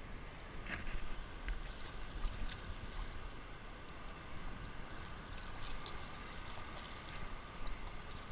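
Shallow tidal water sloshing and lapping as people wade and dig by hand in the mud, with scattered small splashes and clicks and a low wind rumble on the microphone.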